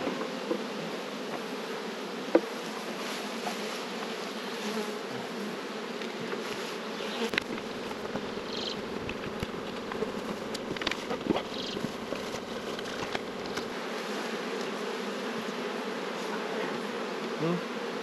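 Many honey bees buzzing around an open hive in a steady hum, with a few light clicks and knocks as the wooden hive boxes and frames are handled.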